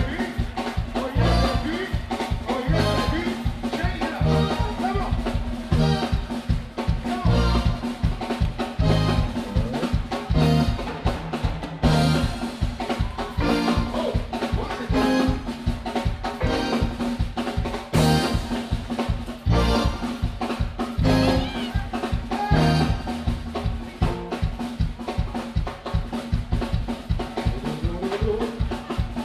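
Live soca band playing: drum kit driving a steady dance beat under bass, guitar and keyboards.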